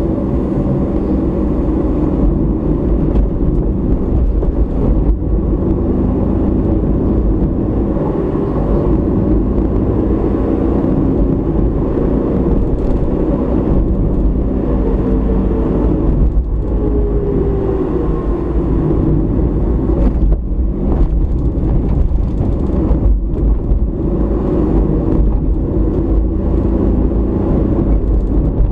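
Car driving on a road, heard from inside the cabin: a steady hum of engine and tyre rumble, with the engine note gliding in pitch a couple of times.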